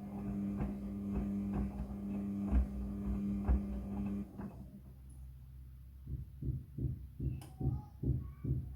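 Front-loading washing machine running: a steady motor hum with knocks from the drum. The hum stops about four seconds in, and after a short lull a regular low thumping takes over at about three beats a second.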